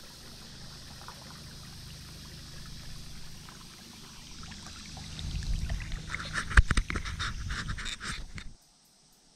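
Water trickling and dripping around a kayak gliding on a river, as from a paddle and the hull, over a steady low rumble. About five seconds in it grows louder, with several sharp knocks and rattles, then cuts out suddenly shortly before the end.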